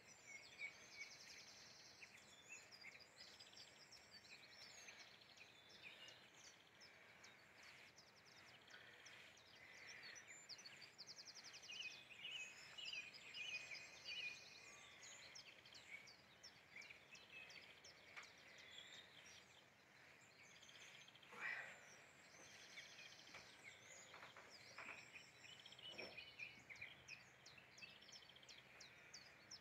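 Faint chorus of wild birds chirping and trilling over a quiet outdoor background hush, with one louder sharp note about two-thirds of the way through.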